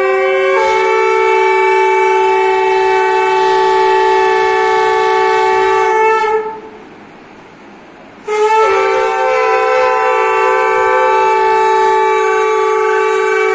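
Conch shells blown together in long held blasts, two or three pitches sounding at once. The first blast breaks off about six and a half seconds in, and after a pause of about two seconds a second blast begins.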